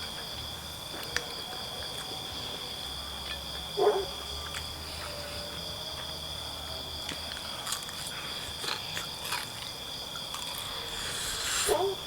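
Steady chorus of crickets trilling at two high pitches, with scattered faint clicks and two short low calls, one about four seconds in and one near the end.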